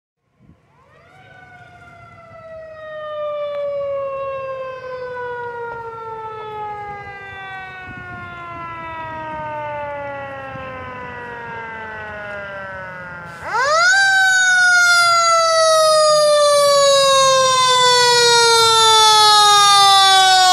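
Fire engine siren approaching. It starts about half a second in, winds up and then slowly falls in pitch. About two-thirds of the way through it winds up again sharply, much louder, and begins another slow fall as the engine pulls up.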